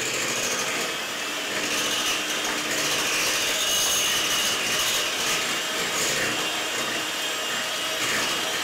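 Electric kitchen mixer running steadily with a high whine, beating a wet cake batter.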